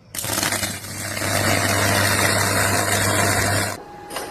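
A machine running loudly: heavy noise over a steady low hum, cutting off suddenly near the end.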